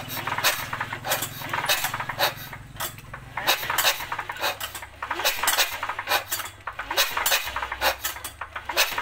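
Metal tools clicking and clinking against a cultivator's small engine while it is being worked on, several sharp clinks a second. A low engine hum runs under it for about the first four seconds and then stops.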